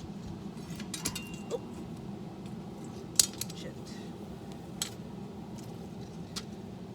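Scattered light metal clinks and taps, the sharpest about three seconds in, over the steady low rumble of a propane forge burner.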